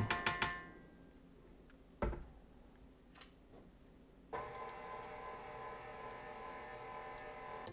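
A single knock about two seconds in. A little past halfway, a KitchenAid Artisan stand mixer's motor starts and runs at an even pitch as its flat beater stirs flour into the batter.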